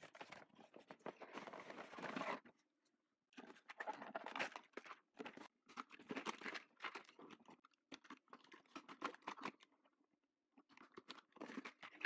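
Faint rustling, crinkling and light clicking as a cardboard toy box is opened and plastic toy trucks are handled and lifted out of their packaging. The sounds come in short irregular spells, with brief dead gaps about two and a half seconds in and near ten seconds in.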